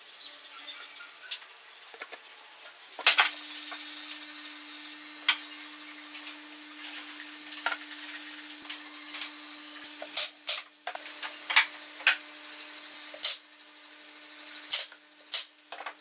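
Wooden parts being handled and fitted on a workbench: scattered clicks and knocks, with a steady hum starting with a sharp knock about three seconds in. In the second half come several short, sharp cracks, the loudest sounds.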